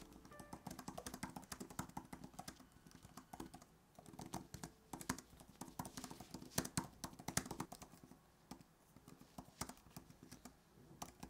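Typing on Apple's white Magic Keyboard for iPad Pro: quick, irregular scissor-switch key clicks, with a couple of short pauses.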